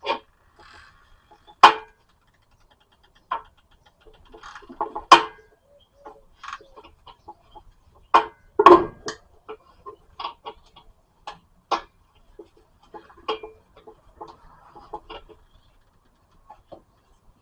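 Irregular sharp metal clanks and knocks of hand tools working on a car's front strut assembly while its coil spring is taken off the old shock absorber.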